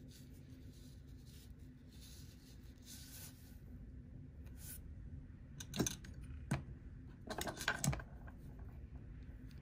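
Fingers rubbing and working a coil of metal wire being wound by hand, then several light, sharp clicks past the middle as the wire turns are pressed and handled.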